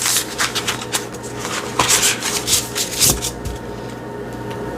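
A tarot deck being shuffled by hand: a quick run of papery card rustles and slaps, thinning out after about three seconds.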